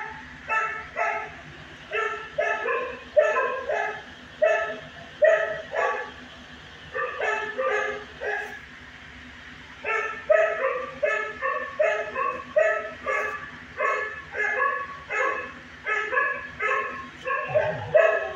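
Shelter dogs barking in a long string of short, sharp barks, about two a second, with a brief pause a little under halfway through.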